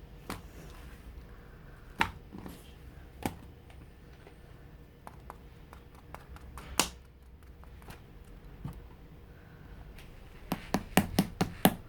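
Mixed slime being squeezed and pressed by hand, giving scattered sticky pops and clicks. About ten and a half seconds in, it breaks into a quick, even run of sharp pops, about five a second.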